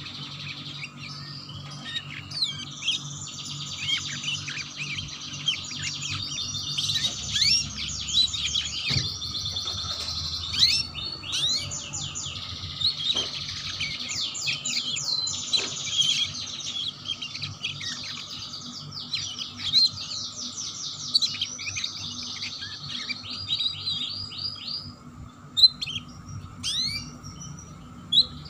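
Canary singing a long, fast, chattering 'ngeriwik' song of rapid trills and rolls. The song breaks off about 25 seconds in, leaving a few short chirps over a steady faint hum.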